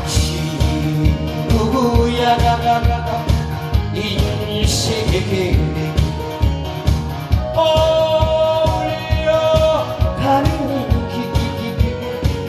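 Man singing a Korean trot song into a microphone over an upbeat backing track with a steady drum beat, played through stage PA speakers. The sung lines come in two phrases, with the backing track alone between them.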